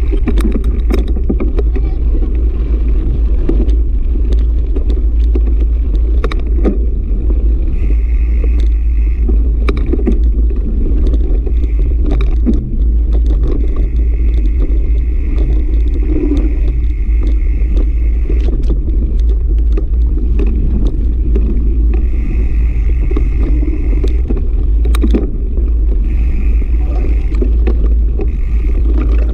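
Wind buffeting the microphone of a camera mounted on a mountain bike in a loud, steady rumble, with scattered clicks and rattles from the bike rolling over gravel.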